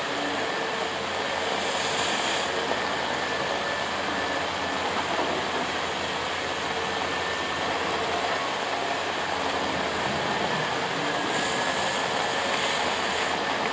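Steady noise of heavy rain and wind, with a machine engine running underneath and a faint high whine held throughout.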